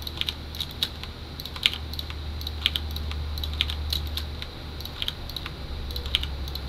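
Irregular clicks of computer keyboard keys and mouse buttons as hotkeys and selections are made, over a low steady hum.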